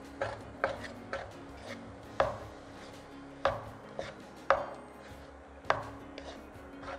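Wooden spatula stir-frying cooked rice in a non-stick pot, knocking against the pot about eight times at uneven intervals.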